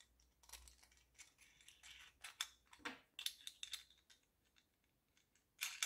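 Faint, scattered clicks and light taps of small metal T-nuts and screws being handled and fitted on a 3D-printed plastic part. They stop for about a second and a half, and a few more come near the end.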